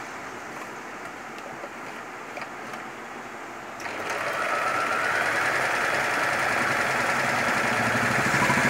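A Butterfly JHQ3010 compact electric sewing machine starts stitching about four seconds in and then runs steadily, needle going up and down through the fabric. A few faint clicks come before it starts.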